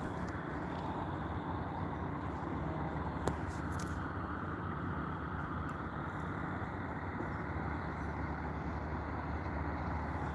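Steady low rumble of big-rig truck engines idling, with one sharp click about three seconds in.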